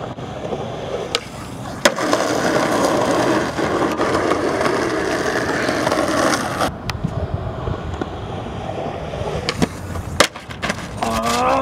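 Skateboard wheels rolling steadily over rough asphalt, with sharp wooden clacks of the board: a couple early on, then a tail pop and landing about ten seconds in as the skater ollies.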